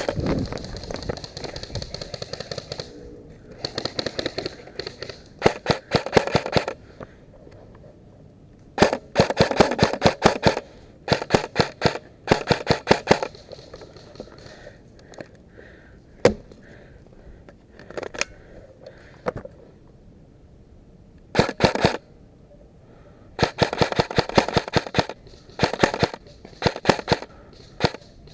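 Airsoft electric guns firing full-auto bursts: about eight short strings of rapid snapping shots, with a couple of single shots in between.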